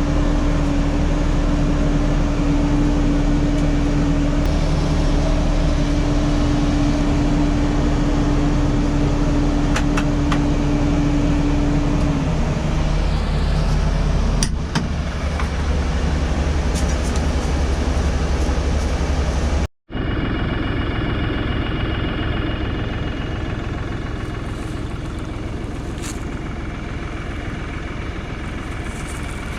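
A vehicle engine running steadily, with a steady hum that stops about twelve seconds in; an abrupt cut about two-thirds of the way through leads into a similar engine noise.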